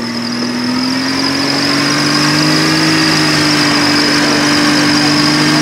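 Off-road competition vehicle hauling itself up a steep bank on its winch: a steady, loud drone of motor under load that rises a little in pitch over the first few seconds and then holds. A steady high whine runs above it.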